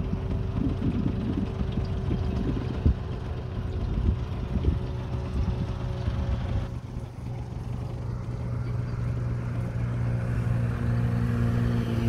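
Pontoon boat's outboard motor running with a steady low hum that grows louder over the last few seconds, under uneven low rumbling in the first half.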